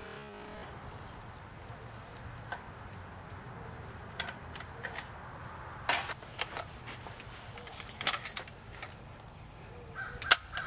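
Scattered sharp clicks and small knocks, about a dozen spread irregularly, from a Daisy Powerline 35 air rifle being handled and worked, over a low steady background.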